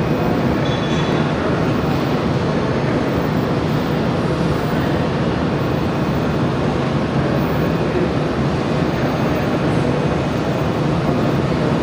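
Steady machine noise: an even rushing hum with no rhythm and no breaks, like fans and equipment running in a workshop.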